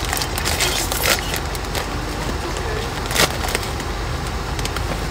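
Crinkling and crackling of a foil snack-chip bag being pulled open and handled, in a few sharp bursts, the loudest about three seconds in. A steady low road rumble from the moving car sits underneath.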